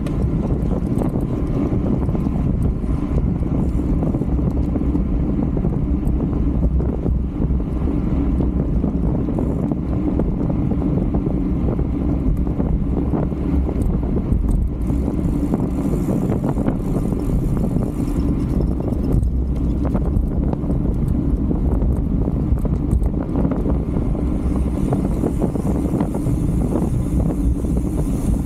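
Wind rushing over the microphone of a camera on a racing bicycle moving at speed: a steady low roar.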